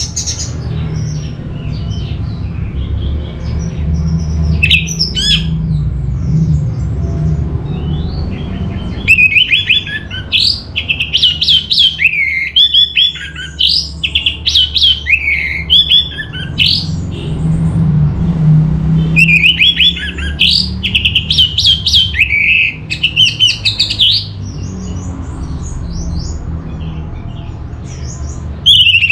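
Orange-headed thrush singing: two long runs of quick, varied whistled and chattering notes, the first about nine seconds in and the second near twenty seconds, with a few short calls between them, over a steady low hum.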